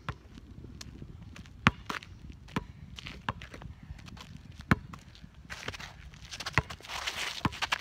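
Basketball bouncing on an asphalt court: single sharp thuds, irregularly spaced about a second apart, the loudest about a second and a half in and near five seconds in. Over the last two seconds the scuffing of sneakers on the asphalt builds, with quicker light taps.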